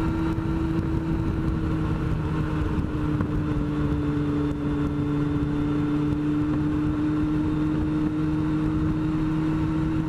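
Yamaha FZR sport motorcycle's inline-four engine running at a steady, unchanging pitch while cruising, with low wind rumble on the helmet-mounted microphone.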